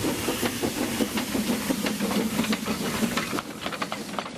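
762 mm gauge C2 class 0-8-0 steam locomotive moving off slowly with its cylinder drain cocks open: a loud steam hiss with a rapid pulsing beat and sharp knocks, easing off about three and a half seconds in.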